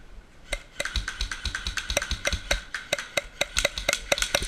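Airsoft guns firing during a close-range firefight: a quick, irregular string of sharp clicks that begins about half a second in and keeps up densely.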